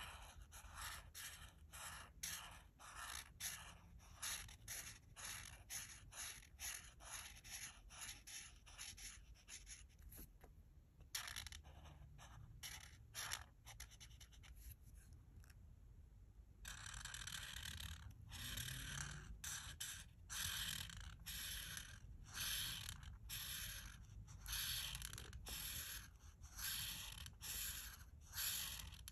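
Art marker tip stroking back and forth across paper in quick, even strokes, about two or three a second. There is a few-second lull about halfway through, then louder, slower strokes.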